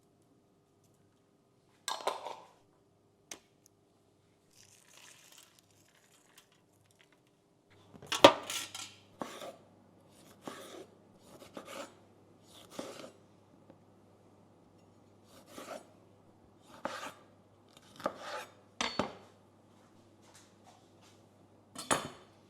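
Kitchen dishes and cutlery being handled: a series of separate clinks and knocks, irregularly spaced, some with a short ring.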